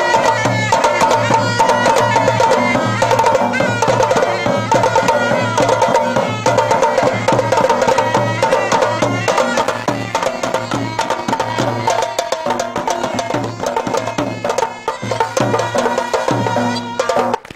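Live traditional Hunza folk music with quick, steady drumbeats under a pitched melody line, accompanying a sword dance. It stops just before the end.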